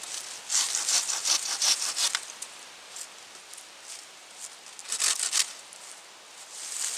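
Machete blade scraping along a thin tree pole: a quick run of scraping strokes in the first two seconds, then another short burst about five seconds in.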